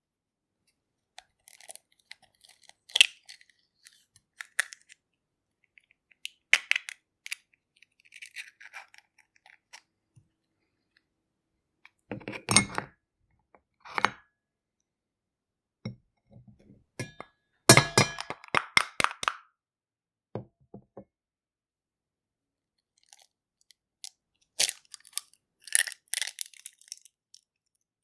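Eggs being cracked on a metal platter: sharp taps and crackling of breaking shell, in several bursts with pauses between, the busiest and loudest burst about two thirds of the way through.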